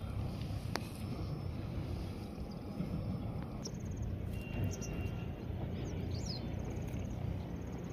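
Open-air ambience: a steady low rumble with a few faint, short bird chirps in the middle.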